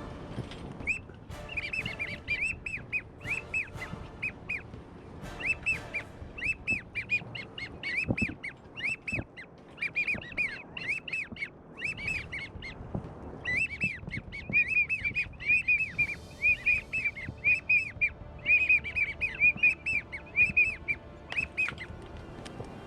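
Ducks whistling: quick runs of short, high, down-slurred whistles, the kind wigeon and teal make, repeated in bursts with short pauses between.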